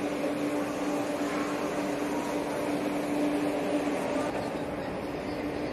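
Steady hum and noise inside a Vande Bharat train coach, with a constant humming tone that fades out about four seconds in.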